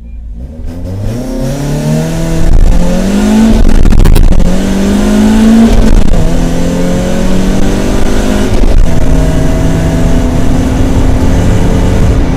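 BMW E30 318is four-cylinder race engine heard from inside the cabin, pulling away from a standing start and accelerating hard. Its pitch climbs steadily through each gear and drops at each upshift, with several gear changes.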